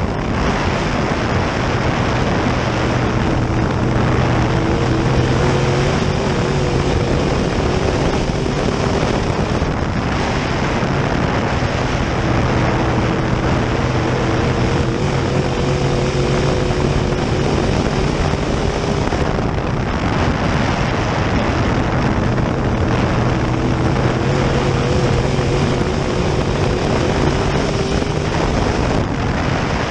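Open-wheel dirt modified race car's V8 engine under racing load, heard from inside the cockpit: a loud, continuous engine note that rises and falls with the throttle over a steady rush of noise, dipping briefly a few times as the driver eases off.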